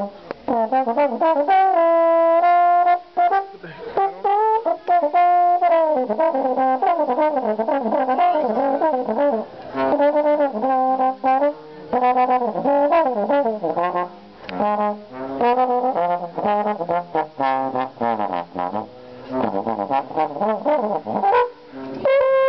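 Brass music led by a trombone-like horn, playing a melody of held notes broken by quicker runs of changing notes.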